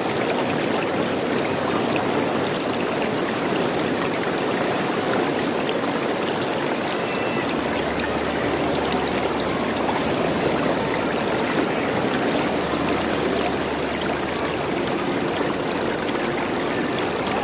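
Running water gurgling and trickling in a steady stream.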